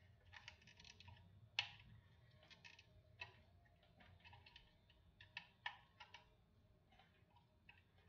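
Faint, irregular small clicks and taps of a plastic fire alarm strobe unit being handled, as its candela setting is changed by hand, with one sharper click about one and a half seconds in.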